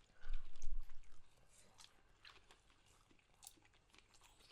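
Close-up chewing of deep-fried pork knuckle (crispy pata), scattered small wet clicks and crunches from the mouth. A low thump-like rumble sounds through the first second.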